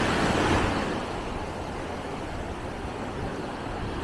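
Sea surf: waves breaking and washing through shallow water, a little louder in the first second, over a steady low rumble.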